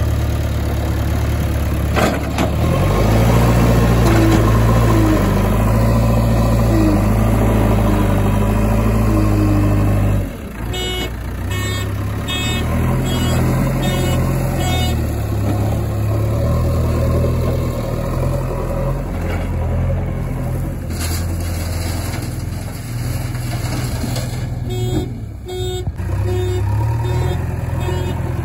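Heavy diesel engines of a JCB backhoe loader and a tipper truck running steadily under working load, the engine note changing about two and a half seconds in and dropping about ten seconds in. Bursts of short repeated beeps sound near the middle and again near the end.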